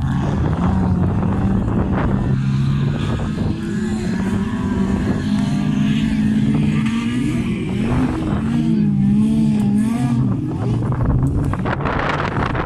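Engines of several wreck-race cars, Mazdas, racing together. Their pitch holds steady and then rises and falls as they rev and back off, most of all in the second half.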